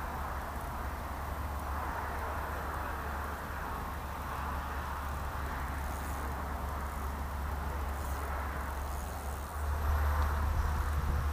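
Steady wind noise on the microphone: a low rumble under a hiss that swells and fades, growing louder near the end.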